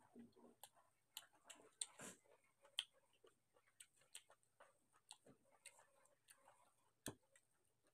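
Faint, irregular clicks and smacks of eating by hand: mouth sounds of chewing and fingers on a plate of rice and curry. One deeper knock comes about seven seconds in.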